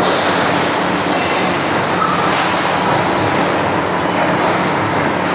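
Steady mechanical din of an automatic sheet-metal punching machine running, with a low motor hum and a couple of faint clicks about a second in and near the end.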